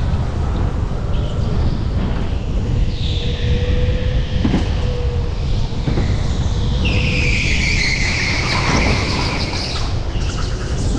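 Go-kart on track heard from an onboard camera: a steady low rumble with a thin whine partway through. Near the end comes a loud high squeal lasting about two seconds, the tyres squealing through a corner.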